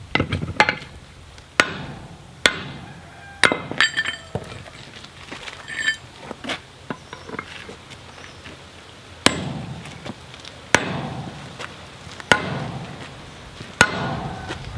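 Hammer blows on a steel drift being driven through the hot square hardy hole of a striking anvil, sharp metallic strikes with some ringing. A quick run of blows in the first four seconds, a pause, then slower single blows about every one and a half seconds.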